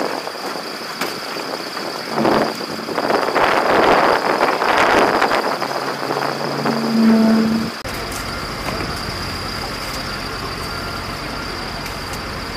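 Dry mix pouring from a bulk bag into a repair pit with shovels working it, a rushing hiss that swells and fades. About eight seconds in it gives way to the steady low hum of heavy equipment idling.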